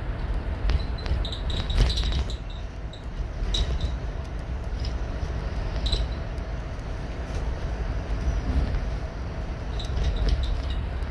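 Cabin noise of a bus driving along: a steady low rumble with scattered rattles and clicks, and a few brief high squeaks.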